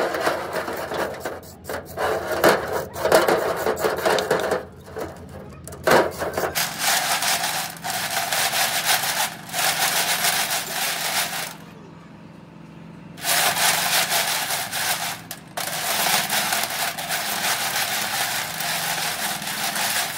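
Rapid rasping scrubbing strokes on truck gearbox parts being cleaned. They pause for about a second and a half around the middle and again briefly a little later. A steady low hum runs underneath during the first third and then stops.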